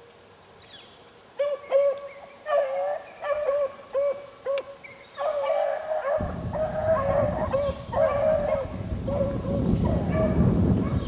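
Beagles baying as they trail a cottontail rabbit. A few short, spaced bays about a second and a half in are followed by several hounds giving voice at once from about halfway. From about halfway a low rumble of wind or handling noise on the microphone runs under the baying.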